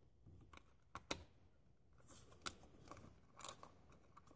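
Ratchet and socket clicking and clinking faintly against metal while working on an ignition coil retaining bolt, with a few sharper ticks about one, two and a half and three and a half seconds in.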